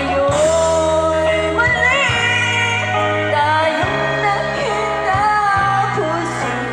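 Live band playing a pop song: a woman singing into a microphone through the PA over electric guitar, keyboard and a bass line of held low notes.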